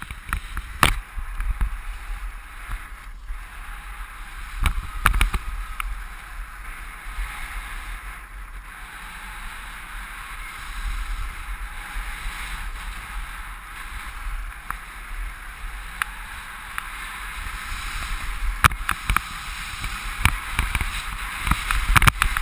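Skis sliding and carving on packed snow, a steady hissing scrape, with wind rumbling on the microphone and a few sharp clicks and knocks along the way.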